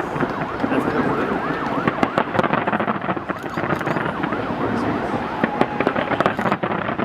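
Fireworks going off in quick succession: many sharp bangs and crackles over a dense crowd din, with repeated whistles rising and falling in pitch.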